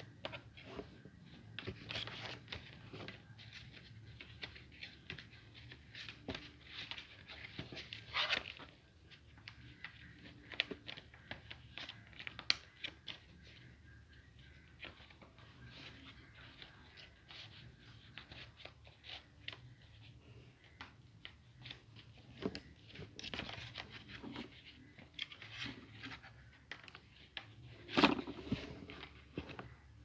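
A sheet of white paper being folded and creased by hand into a paper plane: irregular rustling and crinkling with sharp crackles, the loudest about two seconds before the end.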